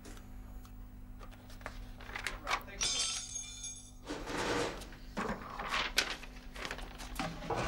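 Paper rustling and crinkling with scattered small clicks and knocks of handling, over a steady low hum. The densest crinkling comes about three seconds in.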